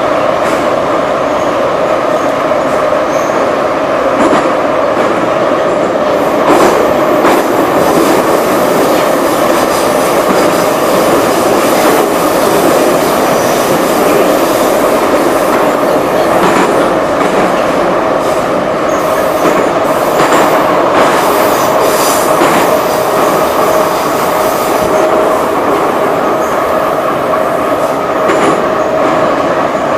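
Moscow Metro Ezh-3/Em-508T-series subway train running at speed, heard from inside the car: a loud steady rumble of wheels on rail with a steady high-pitched tone over it and scattered clicks from the track.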